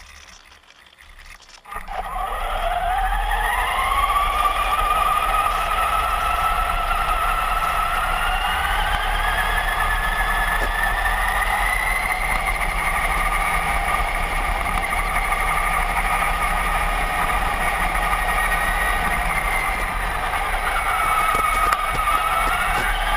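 Electric motor and gear whine of a Traxxas Summit radio-controlled 4x4 truck. It starts about two seconds in with a quickly rising whine, runs at a fairly steady pitch, and dips briefly and rises again near the end as the throttle changes.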